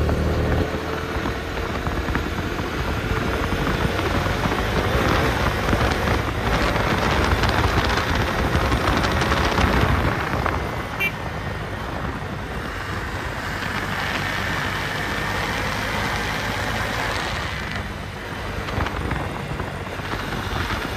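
Bajaj Dominar 250 motorcycle's single-cylinder engine running under way at road speed, with heavy wind rush on the microphone. The noise eases a little about ten seconds in.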